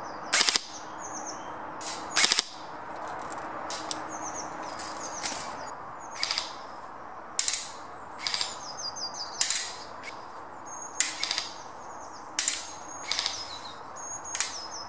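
Double Eagle M906B airsoft electric rifle firing single semi-auto shots: two loud sharp cracks in the first couple of seconds, then fainter sharp cracks roughly once a second. Small birds chirp in the background.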